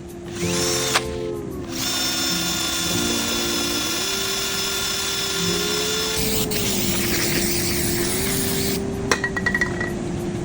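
A small drill-like power tool running with a steady whine, starting about half a second in, breaking off briefly, then running on until near the end, over background music.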